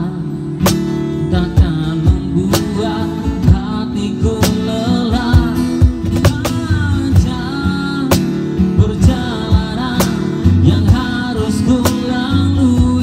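Live acoustic music: a strummed acoustic guitar and a singer's voice through a microphone and PA speaker, with sharp percussive hits marking the beat.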